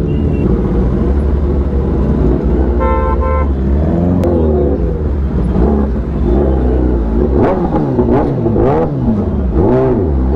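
Kawasaki ZX-10R inline-four superbike running at low speed, its engine a steady drone, with a vehicle horn tooting twice briefly about three seconds in. In the second half the engine is revved in several quick blips, its pitch rising and falling each time.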